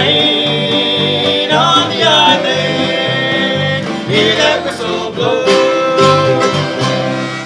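Bluegrass-style string band playing an instrumental passage, banjo and guitar under a held, sliding lead melody, over a steady low bass pulse.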